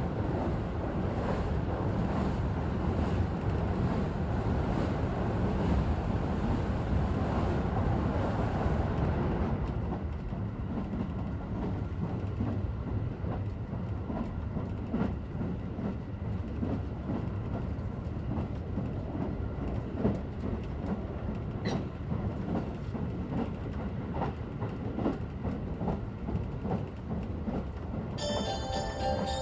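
Interior running noise of a JR West 281 series Haruka limited express: a steady rumble from wheels and track, louder for the first ten seconds or so, then quieter with scattered clicks. Near the end the in-car chime starts, a short bell-like melody that signals an announcement.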